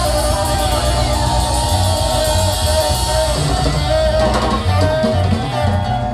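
Ska band playing live at full volume, with drum kit, bass, electric guitar and keyboards together.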